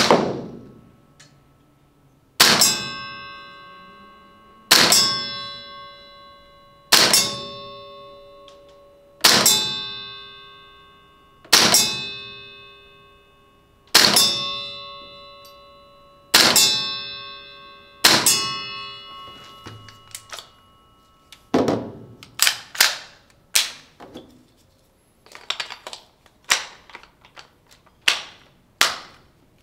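APFG MPX gas blowback airsoft rifle firing single shots about every two and a half seconds, each BB hit setting a steel plate target ringing. After about twenty seconds the ringing stops and a run of shorter, irregular clacks and clicks follows.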